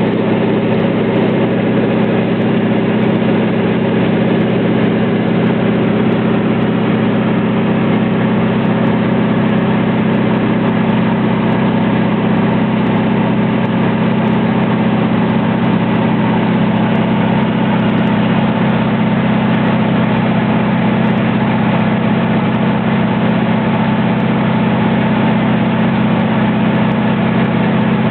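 Propeller-driven light aircraft's engine running at a steady cruise, heard inside the cabin as a loud, unchanging drone with a strong low hum.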